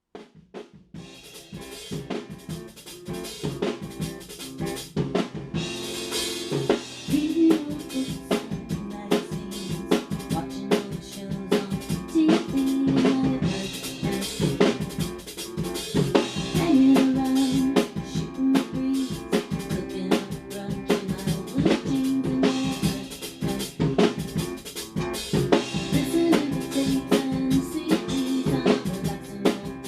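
Acoustic drum kit played in a groove of kick drum, snare and rimshots. It starts softly and builds over the first few seconds, with a cymbal crash about six seconds in.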